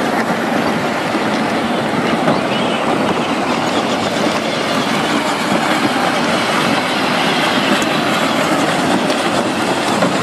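Steady whirring and clatter of several battery-powered Power Wheels ride-on toy cars, their electric motors and plastic gearboxes running as they drive around.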